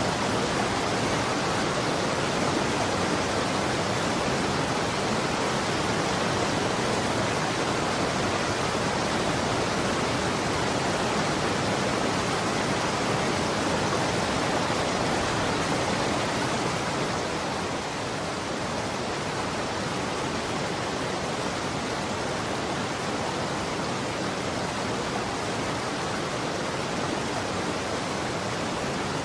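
Running water rushing steadily, an even noise with no distinct splashes, dropping slightly in level a little past halfway.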